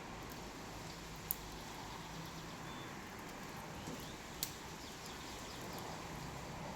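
Wood fire burning with a soft steady hiss and small crackles, and two sharper pops, one about a second in and one past the middle.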